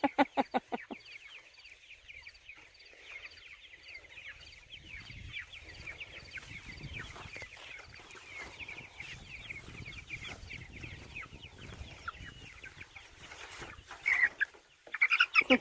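A flock of chickens calling continually with many short, high peeps and clucks. Louder calls come about 14 seconds in and again at the end.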